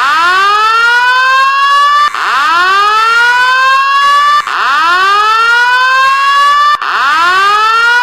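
Fire alarm voice-evacuation speaker sounding the whoop tone: a rising sweep that climbs quickly and then levels off, repeated four times about every two and a quarter seconds.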